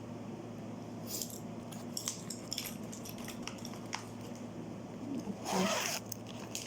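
Small jewelry pieces being handled and sorted: scattered light clicks and jingles, with a louder rustle about five and a half seconds in, over a steady low hum.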